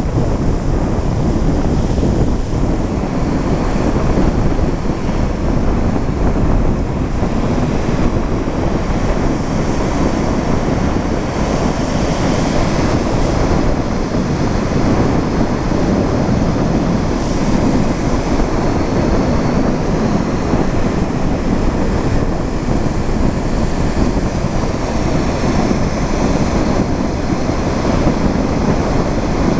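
Surf breaking on a sandy beach, with wind blowing across the microphone.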